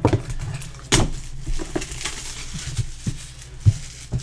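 Hands handling a cardboard trading-card hobby box on a table: a few sharp knocks and taps, one about a second in and more near three and four seconds, with light rubbing of hands over cardboard between them, over a steady low hum.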